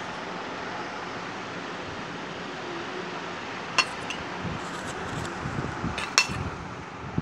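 A metal spoon clinking against a small stainless-steel bowl, in two pairs of sharp, briefly ringing clinks about four and six seconds in, over a steady hiss.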